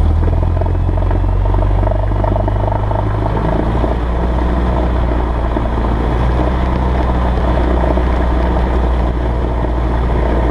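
Cessna 172S's four-cylinder Lycoming engine and propeller running steadily at about 1800 rpm for the pre-takeoff run-up. The engine note shifts slightly about three and a half seconds in.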